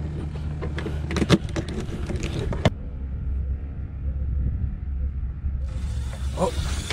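A blue crab being cut up with a knife on a cooler lid: a run of sharp cracks and snaps of the shell, loudest about a second in, over a steady low rumble. The sound then drops away for a few seconds before the rumble and a few clicks come back.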